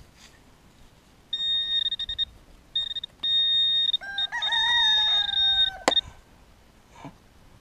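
Garrett pinpointer's high-pitched alarm tone sounding in short spells and then holding solid for about two seconds: the probe is on a metal target in the dug plug. The tone ends with a sharp click. Over the solid tone a rooster crows once, a drawn-out call that rises and then slowly falls.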